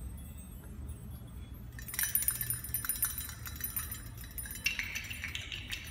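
Small hanging objects of a mobile sculpture clinking and tinkling against each other, starting about two seconds in as they are set swinging by hand, with a busy run of light clicks and ringing tones that grows louder near the end.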